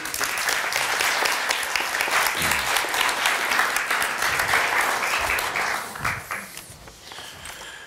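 Audience applauding: many people clapping together, starting suddenly and dying away over the last couple of seconds.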